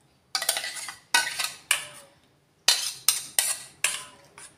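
Steel spoon scraping and clinking against a stainless steel pot while stirring a thick paste into water: a run of short scrapes, with a pause about halfway through.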